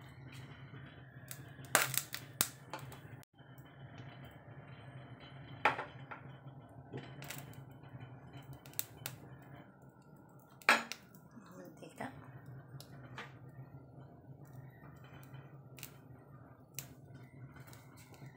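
Scattered sharp clicks and taps of a wok and kitchen utensils being handled while cooking oil heats in the pan, over a low steady hum.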